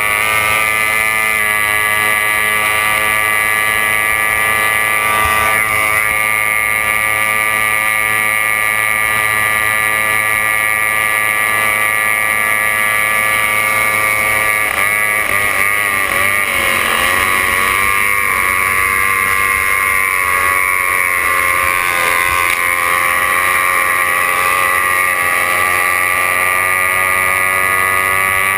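Racing hydroplane's engine running at high revs, heard from on board the boat, with a wavering dip in pitch about halfway through before it settles back.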